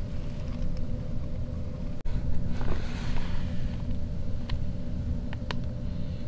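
Steady low background rumble with a faint hum, a brief soft rustle about halfway through, and a few light clicks near the end.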